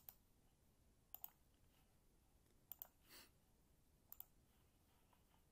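Computer mouse clicking in a quiet room: a single click, then three quick pairs of clicks about a second and a half apart.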